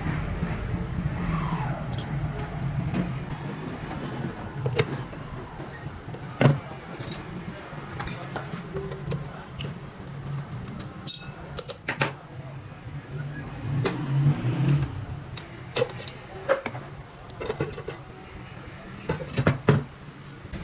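Workshop handling of metal parts: scattered sharp clicks and knocks, a few of them loud, over a steady low hum.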